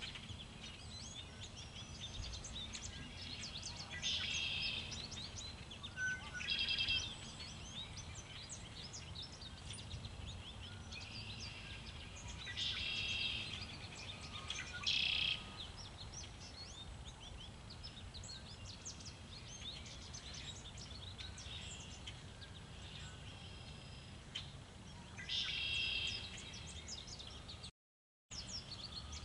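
Songbirds chirping and calling, with a few louder bursts of song, over a steady low rumble of wind on the microphone. The sound cuts out for an instant near the end.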